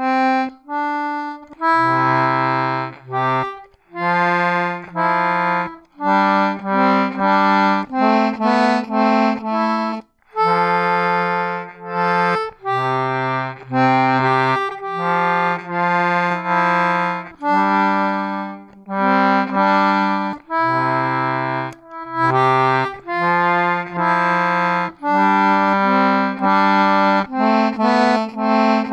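Hexagonal button concertina played by a beginner, a looping riff of chords with low bass notes under a melody, broken by short pauses between phrases.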